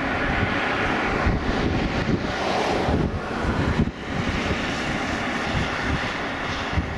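Distant Piper PA-31T Cheyenne II twin turboprop flying on approach, a steady engine and propeller drone, with wind gusting on the microphone.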